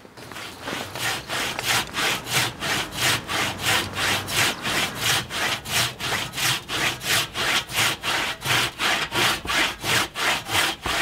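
Handsaw cutting through a dead tree trunk by hand, in quick, even strokes at about three a second.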